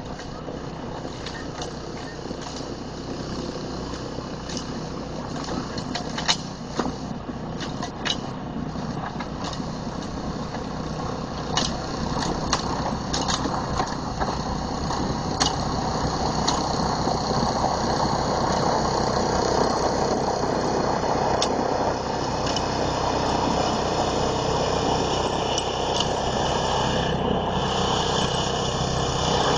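Snowblower with a Honda engine running steadily while its auger throws snow, growing louder over the first half. Sharp clicks now and then, loudest about six and eight seconds in.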